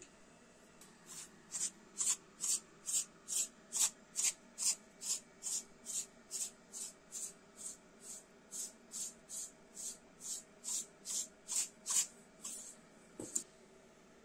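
Pastry brush dabbing egg wash onto raw date-filled pastry rolls on a metal baking tray: a steady run of soft brushing strokes, about two a second, ending near the close with a light knock.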